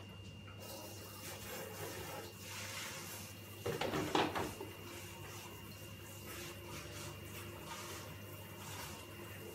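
Kitchen room noise: a steady low hum with a faint high whine, and a brief rustling clatter about four seconds in.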